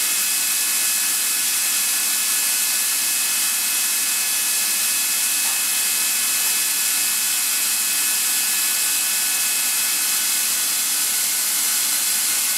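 Atlas Copco ZR75FF oil-free screw air compressor running steadily: an even hiss with a constant high whine.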